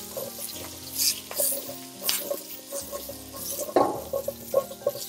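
Potato and pumpkin chunks stir-fried in oil in a stainless steel wok: a light sizzle, with a spatula scraping and turning the pieces several times.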